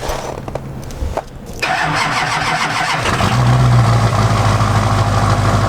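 An engine cold-starting: it turns over, catches a little under two seconds in, and settles into a steady idle about three seconds in. It is a little rough as a cold start.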